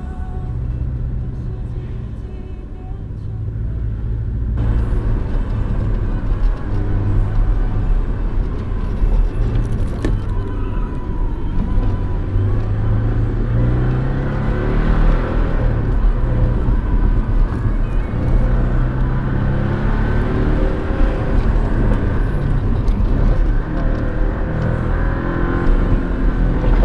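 Porsche 718's engine heard from inside the cabin while driving, quieter at first, then louder from about four seconds in. The revs climb and drop several times.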